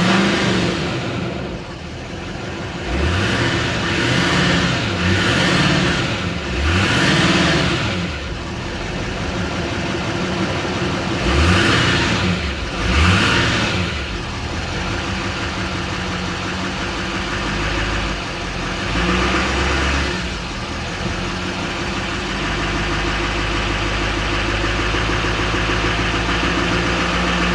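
Turbocharged pickup-truck engine, heard from inside the cab, revved in a series of short throttle blips, each rising and falling in pitch with the turbo spooling up. It then settles into a steady idle, with one more brief rev about two-thirds of the way through.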